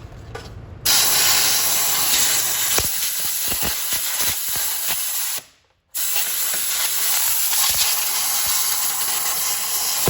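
Compressed-air blow gun blasting out a walk-behind mower's self-propelled drive channel: a loud rushing hiss. It starts about a second in, cuts off for half a second near the middle, then resumes.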